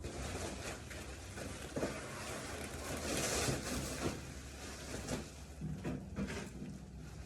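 Handling noises: rustling and scraping with a few sharp knocks or clicks, about two, four and five seconds in.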